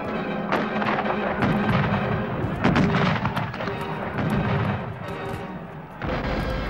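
Black-powder battle gunfire: a string of musket shots, some close together, with a cannon firing near the end, over background music.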